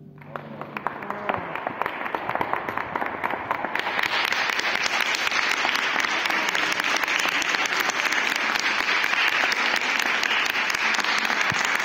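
Audience applause, beginning as scattered claps and swelling into full, steady applause about four seconds in.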